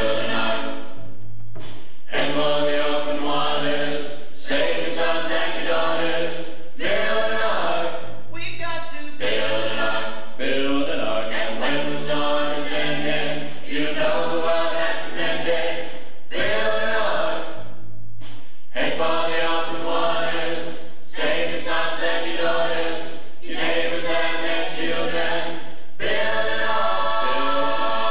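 High school choir singing a song, young male voices into hand-held microphones, in phrases broken by short pauses.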